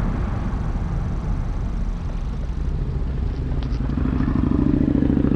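Volkswagen MK7 GTI's turbocharged four-cylinder engine running under way, with an engine note that grows louder from about four seconds in as the car pulls.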